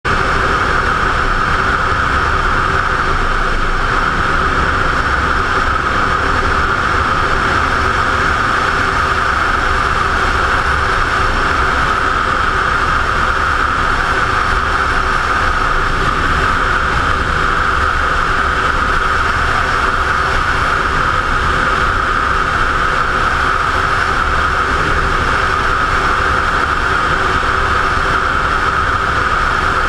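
Steady rush of wind over a helmet-mounted camera, mixed with the engine of a Ducati motorcycle cruising at an even speed.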